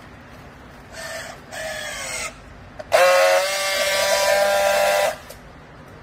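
Handheld battery-powered strapping tool tensioning a plastic strap around a bale: two short motor whines that drop in pitch as the strap tightens, then a loud steady buzz of about two seconds as the tool friction-welds the strap ends, cutting off sharply.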